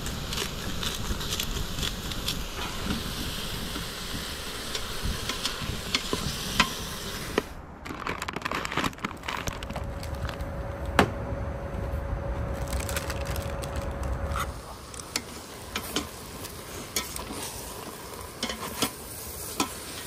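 Stew meat searing and sizzling in the pot of an electric pressure cooker, with a wooden spoon stirring and scraping it. At the start, a pepper grinder is cranked over the raw meat, with a crunchy grinding sound.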